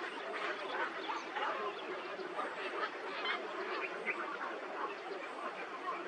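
Many birds calling at once: a continuous din of short overlapping calls and squawks that never pauses.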